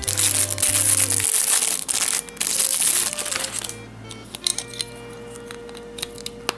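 Clear plastic bag crinkling as a clear acrylic model stand is pulled out of it, dense and loud for about the first three and a half seconds. Then scattered light clicks and taps as the acrylic stand's pieces are handled and fitted together, with steady background music underneath.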